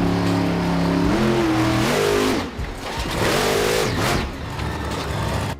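Monster truck engine revving, its pitch swinging up and down several times over a noisy rush.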